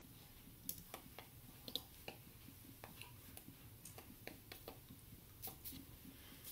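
Near silence: faint room tone with scattered, irregular soft clicks and taps.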